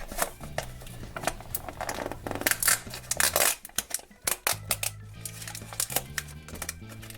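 Background music with steady low notes, under frequent small clicks, crinkles and rustles of plastic toy packaging being handled and opened.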